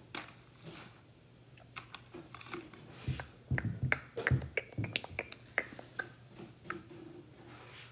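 Plastic marker clicking as it is handled and uncapped: a quick, uneven string of sharp clicks, with a few dull knocks in the middle.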